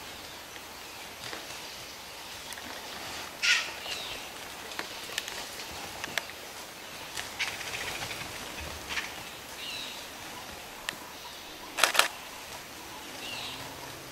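Vultures squabbling at a carcass: scattered short, harsh calls and scuffles with wing flaps, the two loudest about three and a half and twelve seconds in, over a steady outdoor hush.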